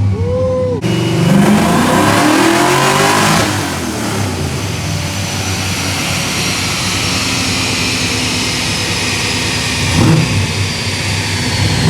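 Fox-body Mustang's 5.0 V8 making a pull on a chassis dyno. The engine revs up hard under load for about two and a half seconds, then the throttle closes, and the engine and spinning rollers wind down with a slowly falling whine.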